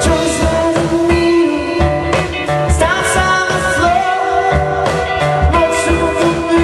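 Live rock band playing: guitar over a steady drum beat, with a voice singing held notes.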